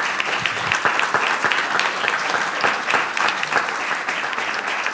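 Audience applauding: many people clapping steadily after a talk.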